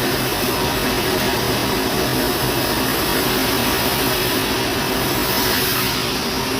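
Sawmill machinery running steadily: a constant engine or motor hum under a wide, even hiss, with no cutting strokes or changes.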